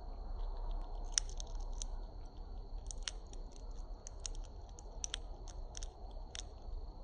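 A bird cracking seed shells in its beak: an irregular run of sharp cracks and crunches, starting about a second in.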